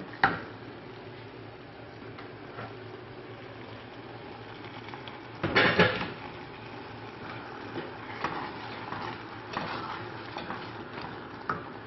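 Tomato sauce simmering in a stainless steel pot while a wooden spoon stirs and scrapes it, with scattered knocks of the spoon on the pot. A louder clatter comes a little over halfway through.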